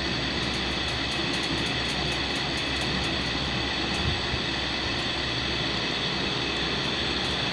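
Steady mechanical hum and hiss, with faint light clicks and a brief soft knock about four seconds in.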